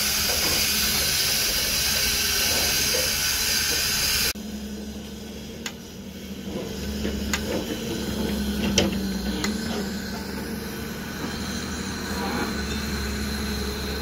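Construction-site noise. A loud steady hiss runs for about four seconds, then cuts off. After that a machine's engine runs steadily, with a few short sharp clicks and knocks.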